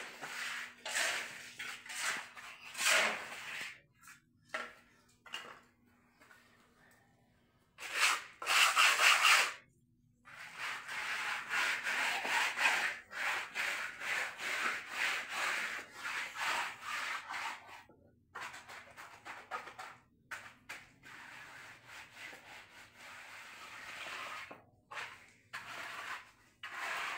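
Mason's hand trowel scraping and smoothing wet concrete in repeated short strokes, the loudest stretch about eight seconds in, then a dense run of strokes.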